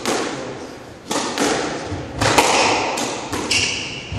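Squash ball being struck back and forth in a rally: about six sharp cracks of racket on ball and ball on the front wall, each echoing around the court. A brief high squeak comes near the end.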